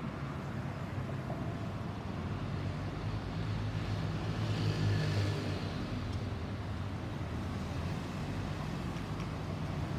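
Airbus A320neo's CFM LEAP-1A turbofan engines climbing overhead at a distance: a steady rumble with a low hum that swells about halfway through, then eases.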